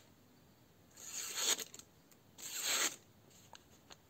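A freshly sharpened grafting knife slicing through the edge of a sheet of paper to test its sharpness: two cuts, each a swelling papery hiss of about half a second, a little over a second apart. The knife cuts cleanly enough to be judged sharp enough for grafting.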